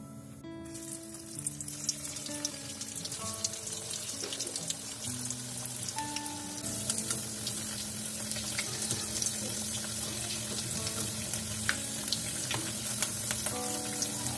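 Sabudana (sago and potato) vada patties deep-frying in hot oil in a kadai: a steady sizzle full of fine crackles. It starts about half a second in and gets louder about halfway through.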